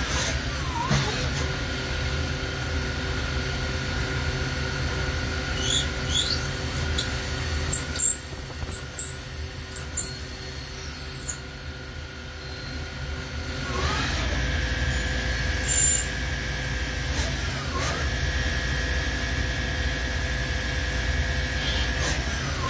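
CNC gang tool lathe running a machining cycle: a steady whine from the spindle and drives that dips and rises in pitch several times as the spindle changes speed. A run of short high squeals from the cutting tool sits between about six and eleven seconds in.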